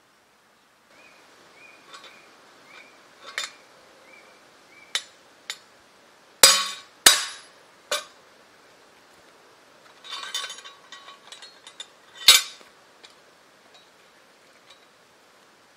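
Sharp clinks and knocks of fired clay bricks against a homemade welded steel brick cutter as bricks are set in and split. The knocks come singly, with two loud ones about halfway through, a run of small clatters, and another loud knock near the end.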